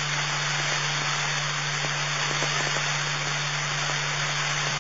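Police scanner radio static: a steady hiss with a constant low hum, the open channel carrying no voice between transmissions.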